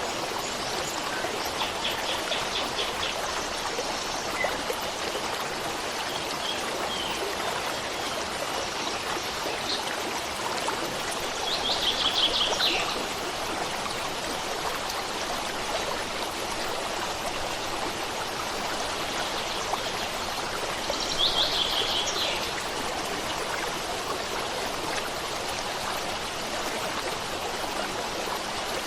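Running water of a stream flowing steadily, with a bird giving short rapid trills of high chirps over it, loudest twice, about twelve and twenty-one seconds in.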